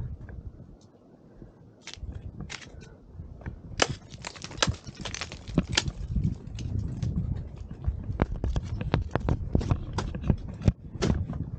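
Irregular crunching and crackling, like boots on packed snow and ice, growing denser about four seconds in, over a low rumble.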